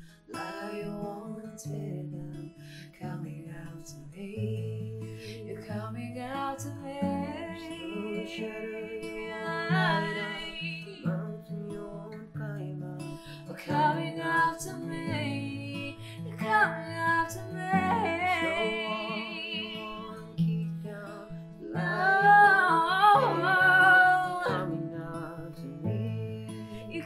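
Soaking worship music: acoustic guitar playing slow chords over sustained bass notes, with a voice singing or humming in phrases, loudest about two-thirds of the way through.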